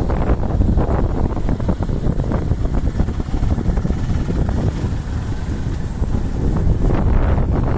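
Wind buffeting the microphone of a moving motorbike, a loud low rumble with rapid crackles that swells slightly near the end.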